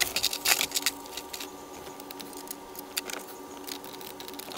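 Scattered small clicks and taps of small metal screws being handled and turned with a hand screwdriver into the side of a double-DIN car stereo head unit, busiest in the first second or so, over a faint steady hum.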